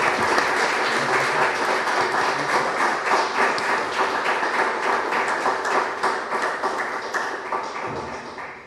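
Applause: many hands clapping in a dense, steady patter that tapers off near the end.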